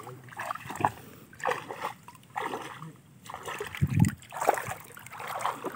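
Sloshing steps wading through floodwater, then a heavy splash about four seconds in as something hits the water, made to fake a big snakehead striking.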